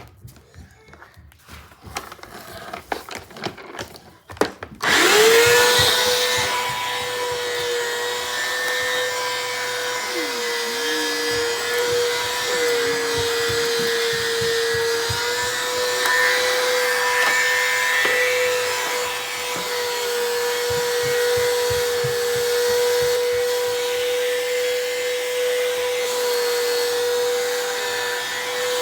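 Bissell CleanView vacuum cleaner switched on about five seconds in, its motor spinning up quickly to a steady high whine with a rushing of air. Before it starts there are a few clicks and knocks of handling.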